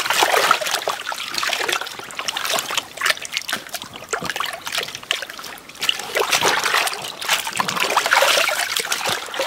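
Water splashing and sloshing in a plastic tub as hands rub and turn a plucked duck carcass to wash it. The splashes come irregularly, easing off in the middle and picking up again near the end.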